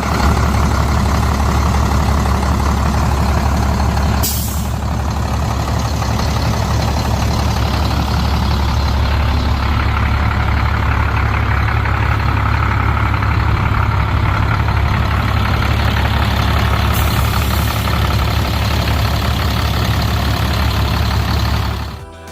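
Navistar DT466E diesel engine of a 2006 International 4300 box truck running steadily. Two short hisses of air break in, one about four seconds in and one near seventeen seconds.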